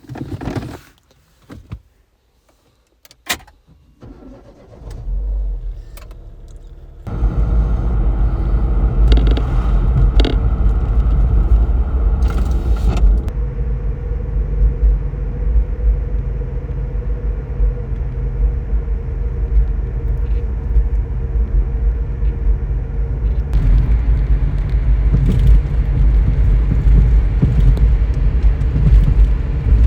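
Keys and small clicks, then a car engine starting about five seconds in. From about seven seconds on, a steady low rumble as the car runs and drives.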